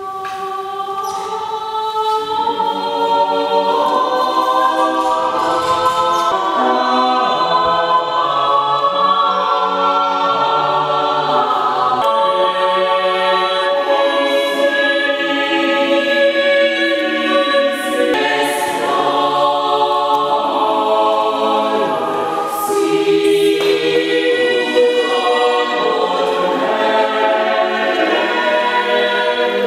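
Mixed-voice chamber choir singing in several parts at once, in long held chords that move from one to the next, with the ring of a stone church.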